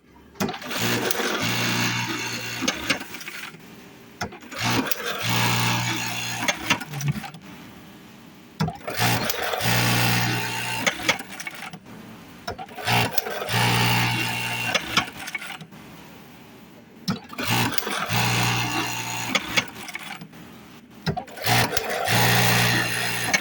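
Buttonhole sewing machine running in repeated cycles, about one every four seconds: each a two-to-three-second run of fast stitching over a steady hum, set off by sharp clacks as it starts and stops.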